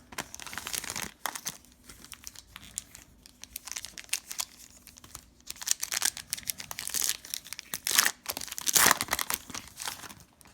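Trading-card pack wrapper being torn open and crinkled by hand, in a run of crackles that grows louder past the middle.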